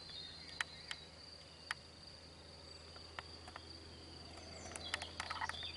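Crickets singing: a faint, steady, high-pitched trill, with a few short faint clicks scattered through and bunched near the end.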